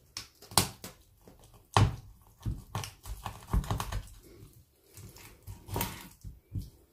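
Kitchen knife cutting raw chicken breast into small pieces on a wooden cutting board: irregular knocks of the blade striking the board, the sharpest about half a second and two seconds in.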